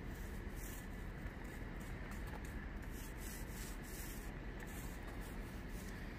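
Small paint roller rolling back and forth over resin-soaked fibreglass mat, a repeated rubbing swish with each stroke, over a steady low rumble.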